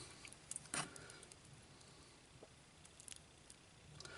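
Near silence with a few faint clicks and light rustling of small plastic model-kit parts and an LED being handled.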